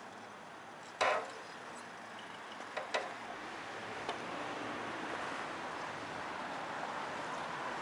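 Bicycle ride: a sharp clatter about a second in and two quick clicks near three seconds, then a rushing road noise that slowly swells.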